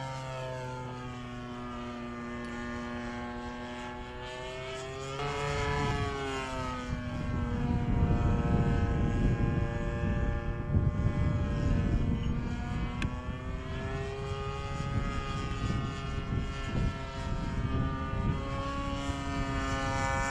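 Propeller of a radio-controlled model airplane droning overhead, its pitch falling and rising several times as the plane manoeuvres. A gusty low rumble joins in from about five seconds in.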